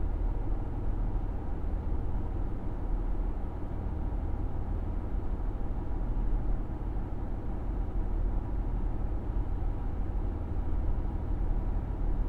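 Cummins NTA855-R1 diesel engine of a KiHa 75 railcar idling steadily while the railcar stands still.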